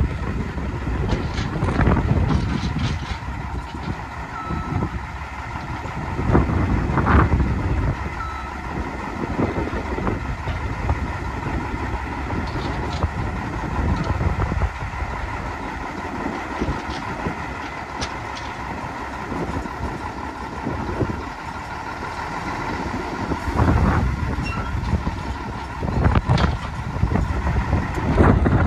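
Diesel engine of a 1972 Mack RL600L dump truck idling steadily, with gusts of wind on the microphone.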